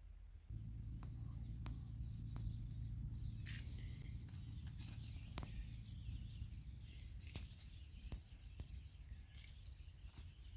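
Faint outdoor ambience: a low rumble of wind on the microphone, with faint bird chirps and scattered light clicks.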